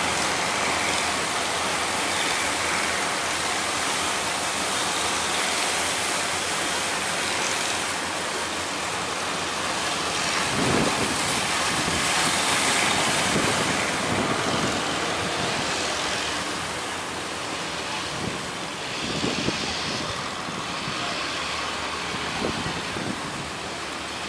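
Big waves breaking at a harbour mouth, with wind on the microphone: a steady rushing noise with a few louder surges.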